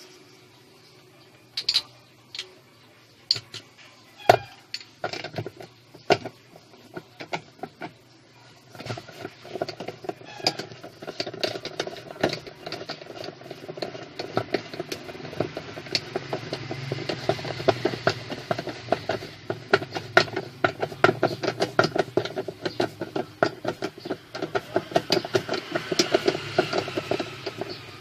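Plastic clicking and rattling from a twin-tub washing machine's pulsator as it is worked by hand in the wash tub. A few separate knocks come first, then a dense, rapid run of clicks from about nine seconds in.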